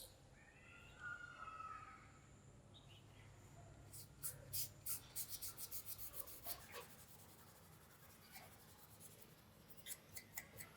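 Quiet handwork: a run of short, quick scratching strokes, about five or six a second, starting about four seconds in. A few more strokes come near the end, and there is a faint brief squeak early on.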